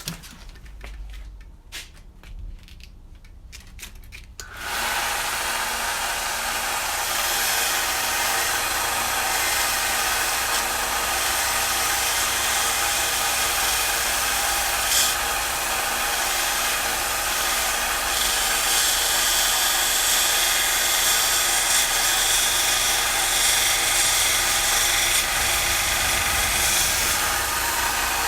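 A few light handling clicks, then about four and a half seconds in an electric power tool starts up and runs steadily, sanding smooth the rough, freshly ground surface of a metal bike part.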